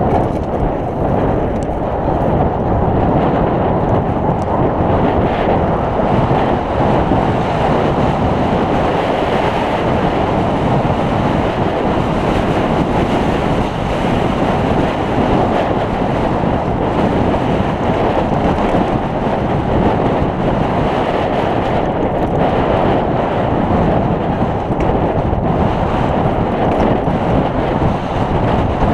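Steady wind rush buffeting the microphone of a camera on a mountain bike speeding downhill, mixed with the rumble of the tyres rolling over a dirt and gravel trail.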